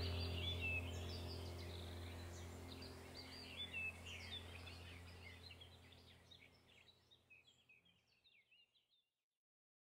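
Small birds chirping over a steady low hum, the whole fading out to silence about nine seconds in.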